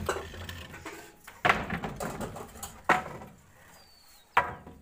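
Wooden shuttering planks being set down and knocked into place on roof-slab formwork: four sharp wooden knocks about a second and a half apart, each trailing off briefly.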